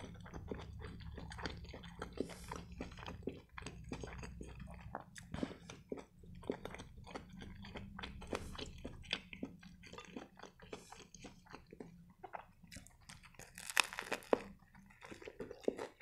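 Close-miked chewing of a turkey shawarma in a grilled flatbread wrap: a steady run of wet mouth clicks and smacks, with a louder crunchy bite into the wrap near the end.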